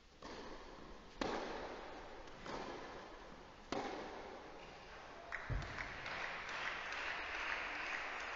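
Tennis rally: about five sharp racket-on-ball hits roughly a second apart, each echoing in a roofed hall. The point ends with a dull thud, followed by scattered applause from about five seconds in.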